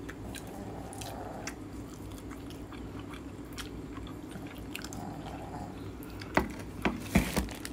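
Close-up eating sounds of a person biting into and chewing a Vietnamese bánh mì with a crisp crust: soft mouth clicks, then a few louder crunches near the end.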